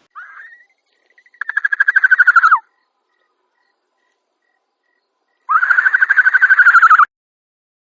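An animal's high, rapidly pulsed trilling call, given twice, each time for over a second, after a short opening note.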